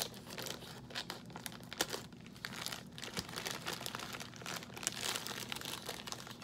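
Plastic snack packet being cut open with scissors and handled: the wrapper crinkles and crackles throughout, with a few sharper snaps and snips.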